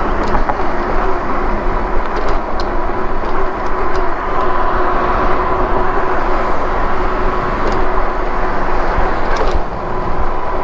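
Riding noise of a Lectric e-bike on a rough concrete sidewalk: wind on the microphone and tyre rumble, with a faint steady whine and a few light rattles over the sidewalk joints.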